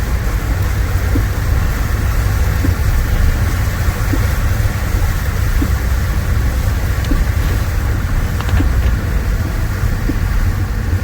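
Steady rumble and hiss of road traffic, with a faint soft tick repeating about every second and a half.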